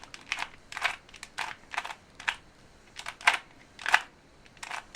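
Rubik's 2x2x2 pocket cube being turned quickly by hand, its plastic layers clacking in about a dozen short, sharp clicks at uneven spacing.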